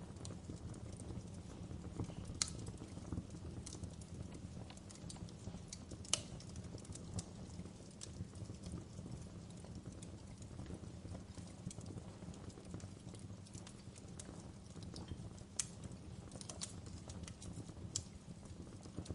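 Wood fire crackling in a fireplace: irregular sharp pops and snaps over a steady low rumble of the flames, the sharpest pops about two and a half and six seconds in.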